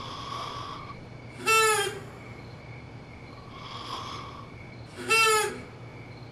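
Snoring in a slow repeating cycle: a hissy rasping breath, then a short high whistling note. The whistle comes twice, about three and a half seconds apart, and is the loudest part.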